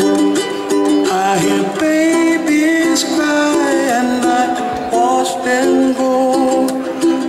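Music playing: a melody moving over held, sustained notes.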